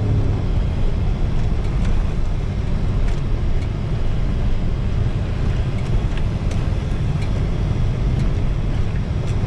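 Vehicle engine running as it creeps along a rough dirt track: a steady low rumble with scattered small knocks and rattles. A pitched engine note drops away just after the start.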